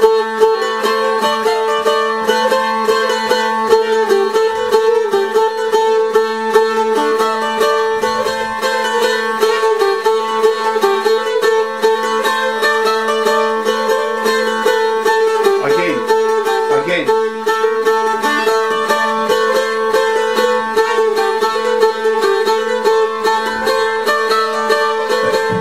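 Bulgarian tambura picked rapidly with a plectrum, a steady drone ringing under a fast melody.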